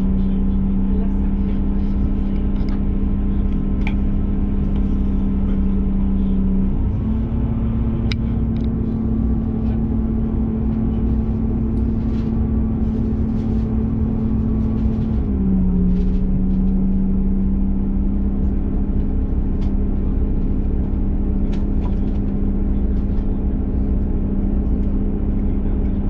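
Diesel passenger train heard from inside the carriage: its engine running with a steady hum over the low rumble of the wheels as it pulls slowly along the platform. The engine note steps up slightly about seven seconds in and drops back about fifteen seconds in.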